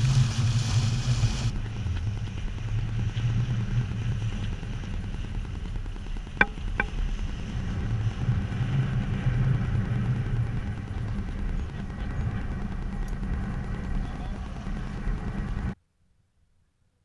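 Wind buffeting the camera's microphone over water rushing past the hull of a sailboat under sail, a steady low rumble, with a hiss of bow spray for the first second or so. Two sharp clicks come about six and a half seconds in, and the sound cuts off about a second before the end.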